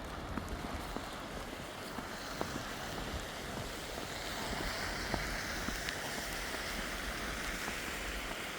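Steady hiss of wind and wet snow, swelling from about four seconds in and easing near the end, with faint footsteps in slushy snow.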